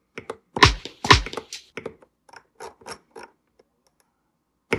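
Akai MPC Live II: two short, loud drum-sample hits about half a second apart, followed by a run of quieter clicks, a few a second, as the data wheel scrolls through the sample list.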